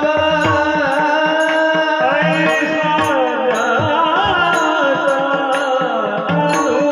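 Warkari kirtan music: a singer holds a long, ornamented note that wavers up and down in pitch over a steady harmonium-like drone. Small hand cymbals tick in a steady rhythm, with low hand-drum strokes near the start and near the end.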